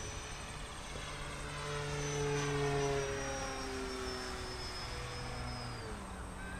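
Radio-controlled electric model airplane flying overhead: its motor and propeller give a steady buzzing whine that grows louder about two seconds in and drops in pitch near the end.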